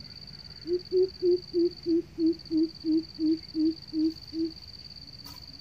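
Greater coucal giving its deep hooting call: a run of about a dozen low 'boop' notes, about three a second, slowing and dropping slightly in pitch toward the end.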